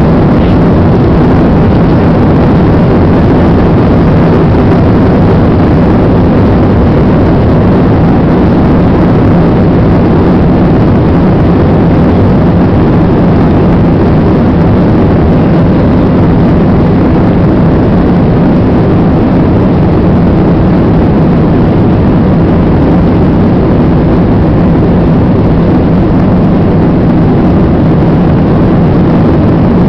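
Airbus A320's jet engines at takeoff thrust, heard from inside the cabin during the takeoff roll down the runway: a loud, steady noise with a low hum under it.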